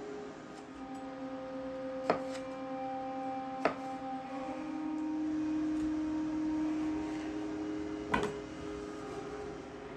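A chef's knife cutting through red potatoes and knocking on a wooden cutting board, three sharp knocks in all, about two, four and eight seconds in. Under them, soft background music of long held notes.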